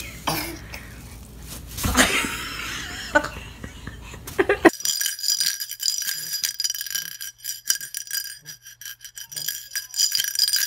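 Plastic bag rustling and crinkling as a toddler tugs it across a wooden floor. Near the middle it cuts off abruptly to music with steady high chiming tones over a soft low beat.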